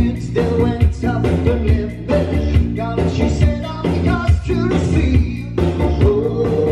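A man singing live into a microphone over backing music with a steady beat and heavy bass, played through outdoor PA speakers.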